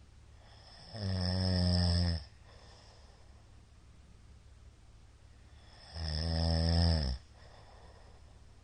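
A man snoring loudly: two long, buzzing snores about five seconds apart, each about a second long.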